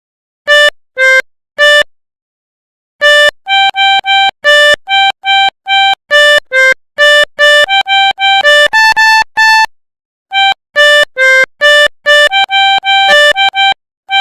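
Pianika (melodica) playing the melody of a Basuri 'telolet' bus horn in short, separate notes. A few notes open, then after a short pause a quicker run of many notes with some held longer, a brief pause, and a last run.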